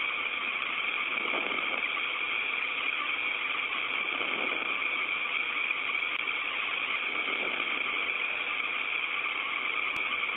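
Steady hiss of an open air-to-ground radio channel between transmissions: a narrow band of static, cut off sharply above the voice range.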